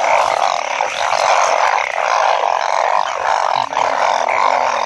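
Dense chorus of many frogs calling at night after rain, a steady unbroken drone.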